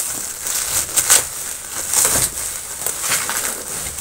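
Hands handling a taped cardboard parcel and its plastic packaging: irregular crinkling and rustling, with a few louder crackles about a second apart.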